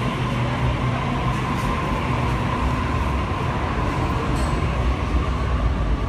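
Sydney Trains Waratah double-deck electric train departing an underground platform, its carriages rolling past with a steady running noise and a thin steady whine; the low rumble grows stronger near the end as the rear cab goes by.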